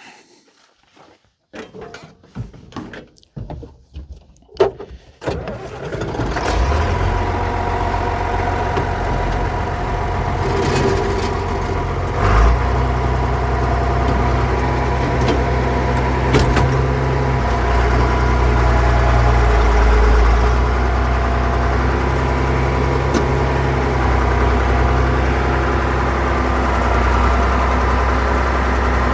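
A few seconds of clicks and knocks, then a John Deere 4030 tractor's six-cylinder diesel engine starts and runs steadily.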